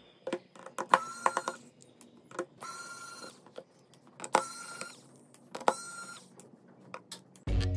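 Electric precision screwdriver running in four short whirs of about half a second each, driving the small screws that hold the midframe onto a Samsung Galaxy A02s, with light clicks of handling between the runs.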